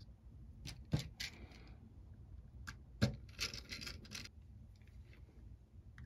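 Canon EOS M camera body handled by hand during reassembly. There are two sharp knocks, about a second in and about three seconds in, each followed by a second or so of scraping and rubbing of the camera's plastic parts.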